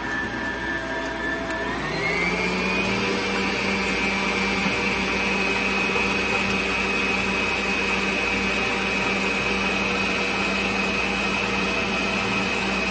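Electric stand mixer whisking eggs in a stainless steel bowl, the motor running steadily. Its whine rises in pitch about two seconds in, then holds steady.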